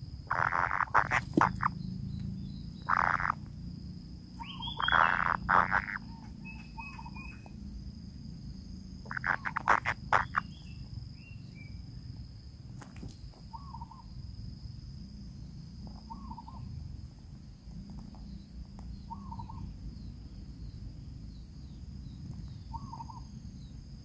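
Kingfisher nestlings calling in the nest burrow: a few short rasping bursts in the first ten seconds, then soft short calls every few seconds. A steady high whine runs under them.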